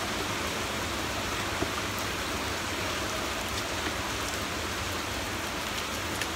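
A steady, even rain-like hiss, with a few faint soft ticks of fingers picking at rice and fried chicken on a plate.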